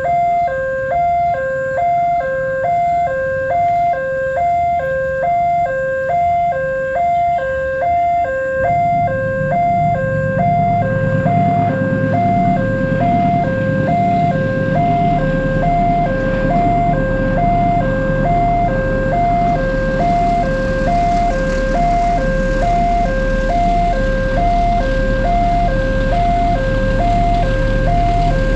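Railway level-crossing alarm sounding: an electronic tone stepping steadily back and forth between two pitches. About a third of the way in, a train's low rumble and engine hum come in and grow louder.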